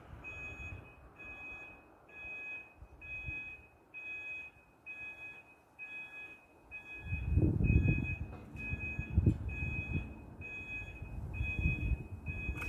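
Level crossing warning alarm sounding a steady run of short electronic beeps, a little over one a second, as the road lights flash: the warning that the barriers are about to lower for an approaching train. A low rumble joins in about seven seconds in.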